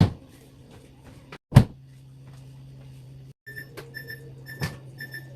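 Two sharp knocks, then a steady low hum and, about three and a half seconds in, a run of short high electronic beeps, about three a second, typical of a refrigerator's door-open alarm while the door is held open.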